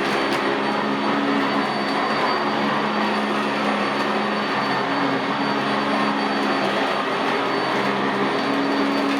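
Sanitaire SC679J commercial upright vacuum cleaner running steadily over carpet, a constant motor whine and airflow rush with a low hum that wavers slightly in pitch as it is pushed back and forth.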